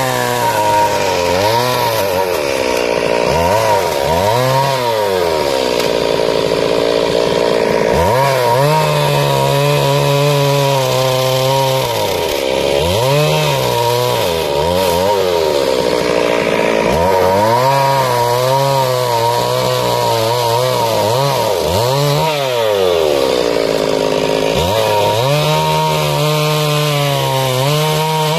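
Stihl two-stroke chainsaw cutting into a wooden block, its engine revving up and dropping back to idle over and over as a series of carving cuts is made, holding full speed for a few seconds at a time.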